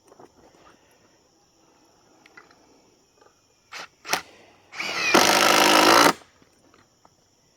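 Power drill run in two quick blips, then once for about a second and a half, driving a screw into the log truss.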